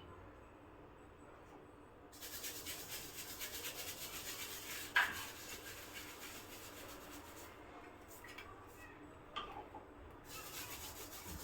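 Scratchy rubbing and scraping at the workbench, in two long stretches, with a sharp click about five seconds in and a smaller one near the end.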